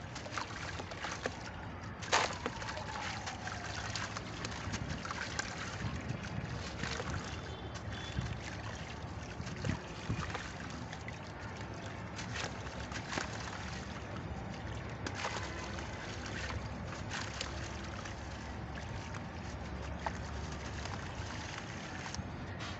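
Red sand being crunched and crumbled by hand: a steady hiss of crumbling grains with scattered sharp cracks, the loudest about two seconds in.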